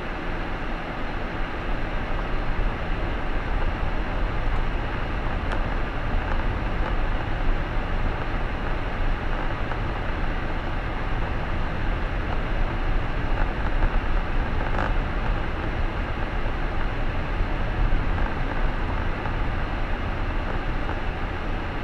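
Steady driving noise of a car on the road: constant tyre and road rumble with a low engine hum.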